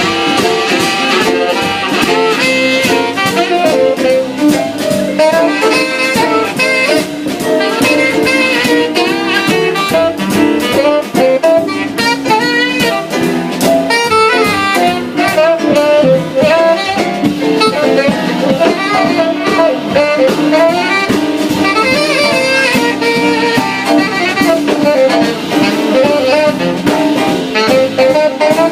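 Instrumental jazz: a saxophone plays a solo over a drum kit and band.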